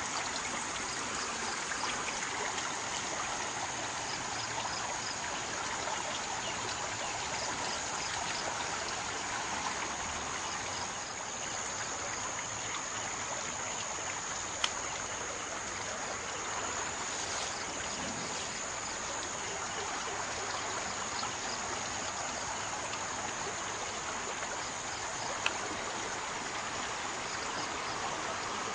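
A river in flood, its fast water flowing with a steady, even rushing noise. Two brief clicks stand out, one about halfway through and one near the end.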